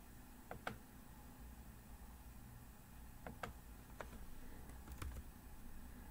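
Four quiet computer mouse clicks spread over a few seconds, some heard as a quick double tick of button press and release, over faint room hum.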